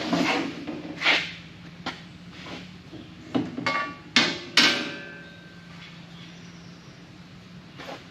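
Metal welding-cart parts clanking and knocking together as they are handled: about seven separate knocks, the loudest two near the middle, a couple of them leaving a short metallic ring.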